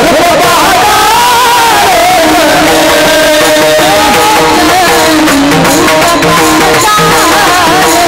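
Devotional kirtan music. A voice sings a wavering melody over instrumental accompaniment, then gives way after about two seconds to steady held instrument tones and hand-drum beats.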